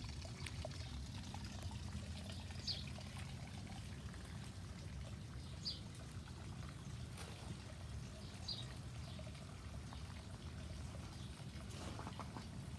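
Water trickling and pouring into a small garden pond from its rock waterfall, a steady low splashing. A short high bird chirp comes every few seconds.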